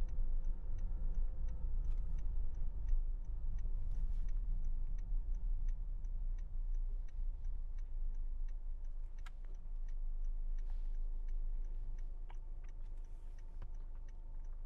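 Car's turn-signal indicator ticking at a steady, even rate over the low hum of the car's cabin.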